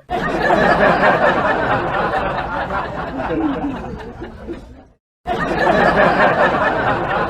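People chattering and laughing in a noisy jumble of voices. It fades out about five seconds in, breaks off for a moment, then starts again at full level.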